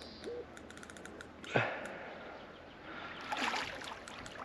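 A hooked grass carp thrashing in the shallows at the bank: one sharp splash about one and a half seconds in and more splashing near the end, with a run of faint quick ticks before the first splash.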